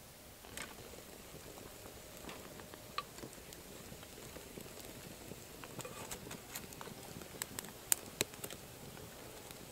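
Dry kindling twigs crackling and snapping: scattered sharp clicks that grow more frequent from about halfway, with the loudest snaps near the end, over a faint low rush.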